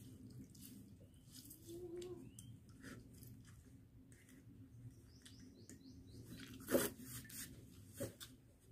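Faint birds chirping in the background, over soft clicks of hands and food in steel bowls, with a sharp knock about seven seconds in and a smaller one a second later.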